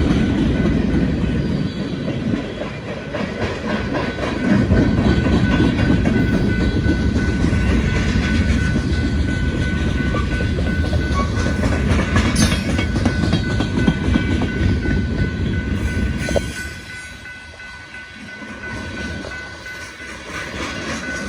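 Freight cars of a manifest train rolling past, wheels clacking over the rail joints in a steady rumble. The noise drops off for a few seconds about sixteen seconds in, then builds again.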